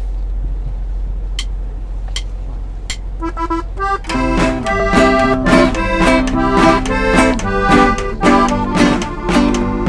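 A few sharp clicks over a steady low hum, then a button accordion plays a few notes about three seconds in. From about four seconds, button accordion, acoustic guitar and a snare drum play together in a steady norteño rhythm, with the accordion leading.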